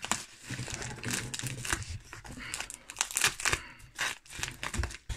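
Paper envelope with a very sticky adhesive seal being pulled and torn open by hand, the paper crinkling and ripping in irregular bursts.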